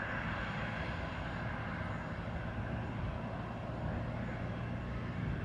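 Steady distant hum and rumble of aircraft and ground machinery on an airport apron, with wind on the microphone.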